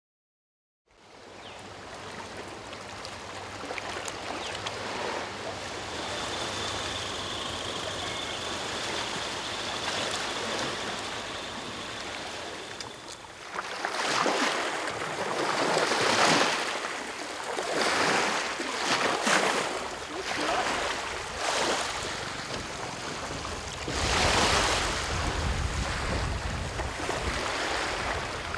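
Small waves lapping on calm harbour water. It starts as a steady wash, then comes in swelling surges every two seconds or so.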